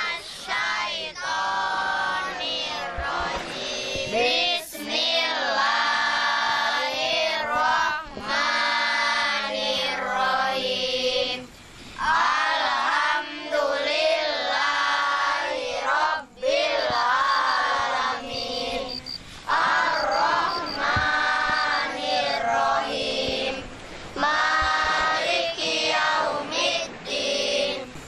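A group of children chanting a devotional song together in unison, long held notes with wavering pitch, sung in phrases with short breaks between them.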